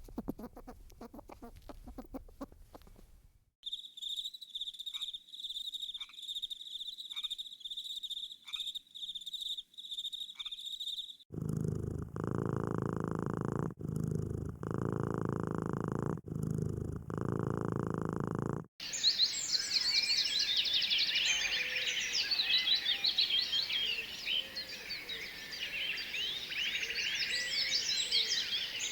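A run of different animal sounds in turn: a steady high trill with a pulse about once a second, then loud low rumbling in blocks with short breaks, then many overlapping high chirps.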